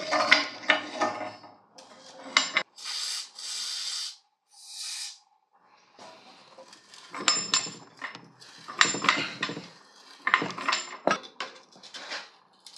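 Metal tools and exhaust parts clinking and knocking while a stuck motorcycle exhaust can is worked loose. A few seconds in come two steady hissing bursts, the first longer than the second.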